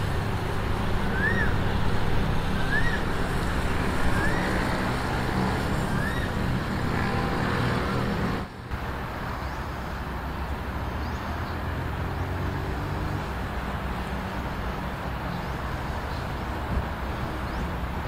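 Sport motorcycle engine running as the bike laps a kart circuit, heard from trackside as a steady low drone. A short rising-and-falling chirp repeats about every second and a half in the first few seconds, and the sound drops out for an instant about halfway through.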